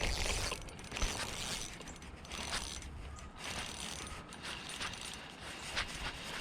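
Shimano Ultegra spinning reel cranking in line in uneven spurts, its gears and drag clicking, while a hooked rainbow trout is played in.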